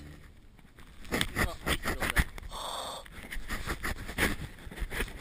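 Close breathing and gasps right at a GoPro, mixed with irregular scuffs and knocks as snow sprays onto the camera and it is handled.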